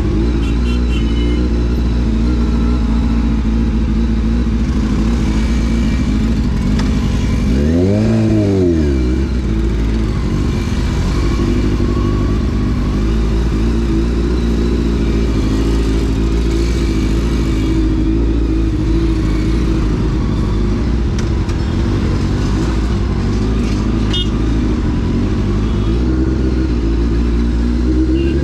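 Honda CBR600 F4's inline-four engine running at steady revs while riding, with one quick rise and fall in revs about eight seconds in.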